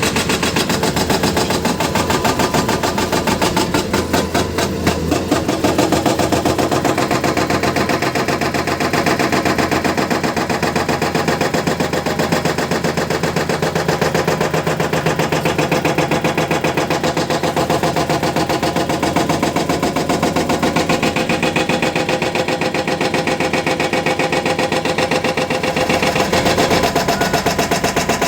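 Hyundai excavator's diesel engine running steadily, with a rapid, even pulsing throughout.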